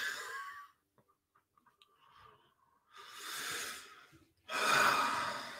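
A man breathing out in two long, heavy sighs, the second louder and fading away, after a short vocal sound at the start.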